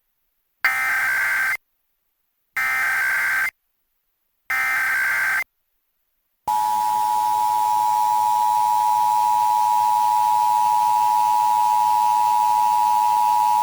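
Emergency Alert System activation on a radio broadcast. It starts with three roughly one-second bursts of the SAME digital header, a shrill data screech, each followed by about a second of dead air. Then the steady two-tone EAS attention signal comes in and holds.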